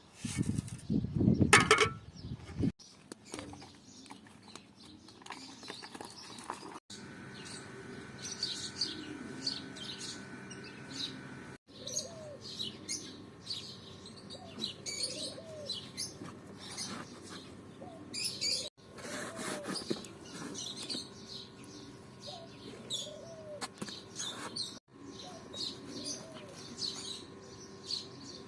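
Birds chirping over and over, with repeated low arched calls among them. There is a loud rumbling noise in the first two seconds and a faint steady hum underneath.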